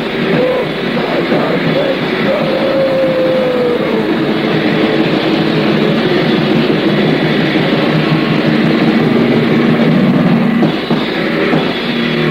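A lo-fi 1984 heavy metal recording at an altered tempo: heavily distorted electric guitars and drums play as a dense, continuous wall of sound. A wavering held high note carries through the first few seconds, and the texture thins briefly near the end.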